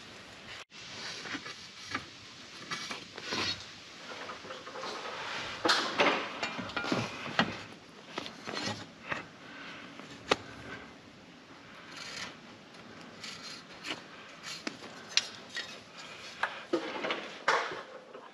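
Hand-tool handling sounds: a steel framing square is set against a wooden story pole and a pencil marks lines along it. Irregular clinks, taps and short scrapes come at uneven intervals.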